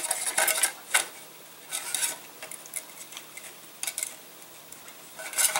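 Light plastic clicks and rustles of hands handling a small rubber-powered model airplane's plastic fuselage stick and wing mount while tying a rubber band in a slip knot, in a handful of short bursts with quiet gaps between.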